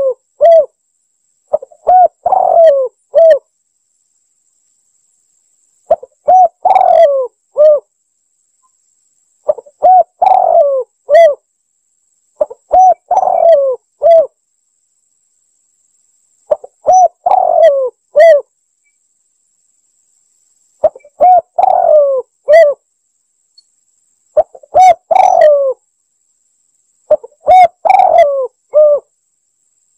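Spotted dove cooing in repeated phrases of about four low, bending coo notes each, a new phrase every three to four seconds, about eight times. This is a looped lure-call recording, with dead silence between phrases.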